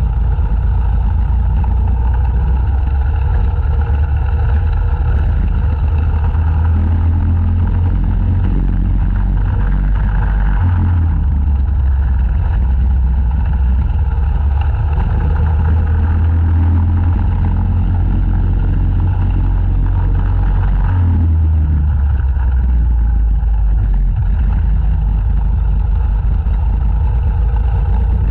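Racing kart engine heard from an onboard camera, running hard at high revs; its note drops and picks up again twice, about a third and two-thirds of the way through.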